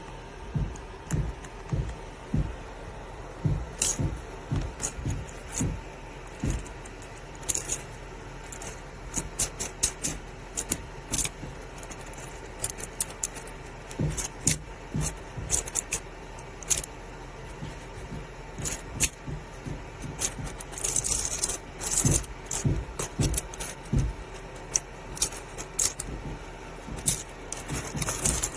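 Small plastic magnetic building cubes being handled, clicking and clacking together in an irregular string of clicks and knocks. There are brief bursts of rattling about two-thirds of the way through and near the end.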